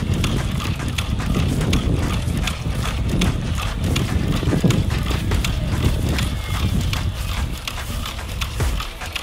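A four-legged walking robot's feet tapping on asphalt as it trots, in a quick, irregular patter of clicks over a low rumble.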